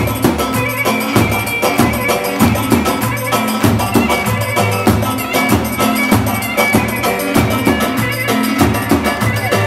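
Live Turkish çiftetelli dance music: a clarinet plays a slow, ornamented melody over a steady davul bass-drum beat.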